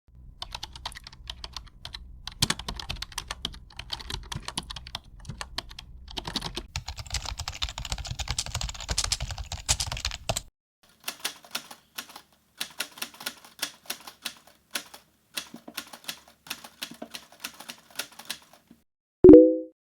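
Computer keyboard typing sound effects: fast, dense keystrokes over a low hum that cut off abruptly about ten seconds in, then a second run of slower, separate keystrokes. Near the end comes a short, loud low blip.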